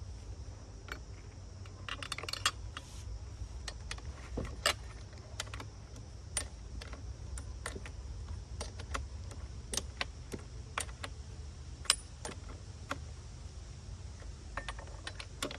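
Metal clinks and taps of a scrench on the bar nuts of a STIHL 462 chainsaw's side cover as the nuts are tightened down. The clicks are sharp and irregular, with a few louder ones spread through.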